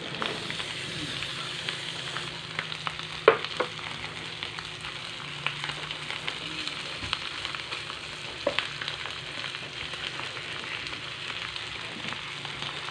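Dried salted fish (tuyo) frying in oil in a pan: a steady sizzle with crackling, and a few sharper clicks, the loudest about three seconds in.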